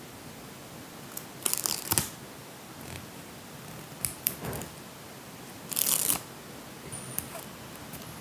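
Fingers handling a tiny miniature toy and its small paper picture-story book: crisp rustling and clicking in three short bursts a couple of seconds apart.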